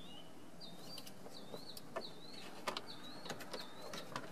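A songbird chirping faintly, a run of short wavering high notes repeated about twice a second. A few light plastic clicks are mixed in as dash trim pieces are handled and fitted.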